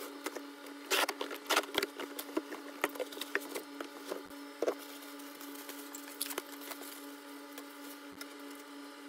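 Cardboard box flaps and plastic wrapping being handled while unpacking a boxed ultrasonic cleaner: a run of crackles, rustles and light knocks, busiest in the first few seconds. A steady air-conditioner hum runs underneath.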